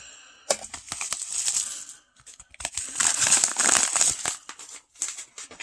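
Padded paper and bubble mailer envelopes crinkling as they are handled and picked up from a pile. The crinkling comes in two spells, from about half a second in to two seconds, and again from about two and a half seconds to five.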